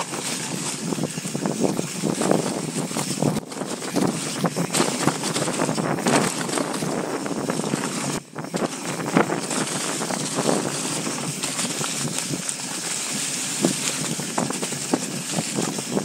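Mountain bike descending a rough trail: wind rushing over the microphone, tyres on dirt and rock, and frequent clatter and knocks from the bike, with a brief lull about eight seconds in.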